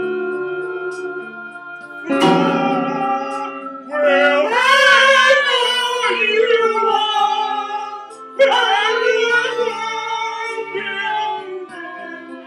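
Amateur band jamming: an electronic keyboard holds sustained chords, an electric guitar is struck about two seconds in, and a voice sings long, bending notes over them twice.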